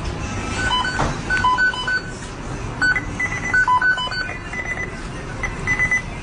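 A series of short electronic beeps in irregular groups, some high and some lower, over a steady background hiss.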